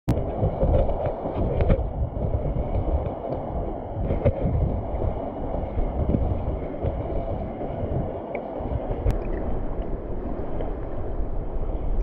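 Mountain stream running: a steady rush of water, strongest in the low range.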